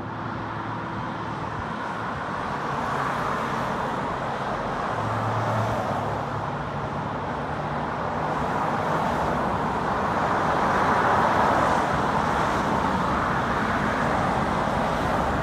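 Road traffic: a steady stream of cars passing on a multi-lane road, their tyre and engine noise swelling and easing as they go by, loudest about two-thirds through.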